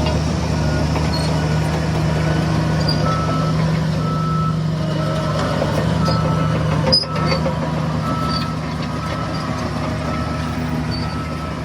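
Heavy diesel construction vehicle running with its reversing alarm beeping at an even beat. There is a brief sharp click about seven seconds in.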